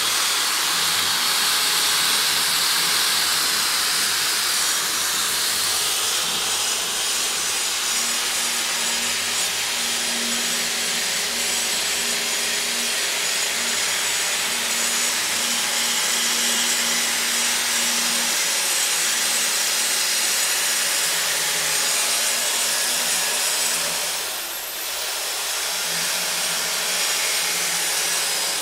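Electric die grinder with a pink mounted grinding stone running against a forged steel scroll: a steady grinding hiss that dips briefly about 25 seconds in.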